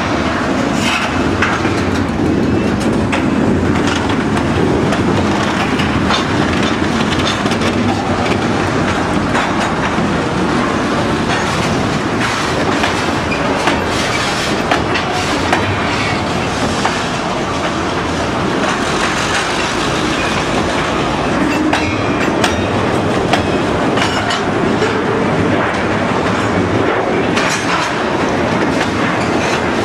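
Freight train of tank cars rolling past close by: a steady loud rumble of steel wheels on rail, with clacking as the wheels cross rail joints.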